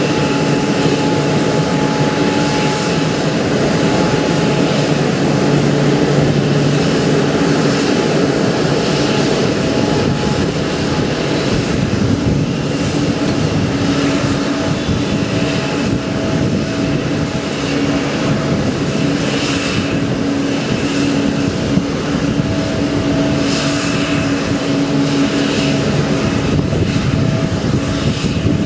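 Steady noise of jet airliners idling on an airport apron: a constant hum with several held tones.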